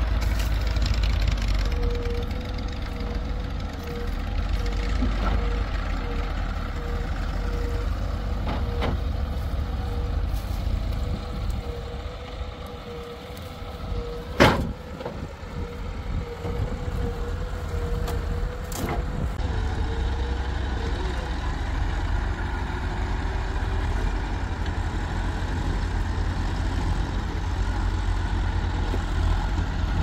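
Heavy diesel machinery running steadily, with a constant low drone and a thin steady whine over it. A sharp, loud knock comes about halfway through, and a lighter knock follows a few seconds later.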